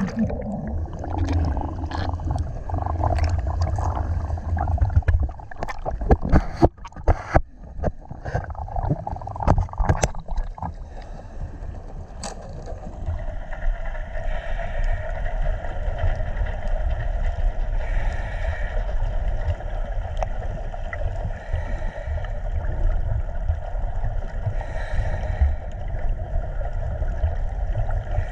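Underwater noise picked up by an action camera in its waterproof housing while snorkelling: a low rumble with a run of knocks and splashes in the first half, then a steady drone from about halfway on.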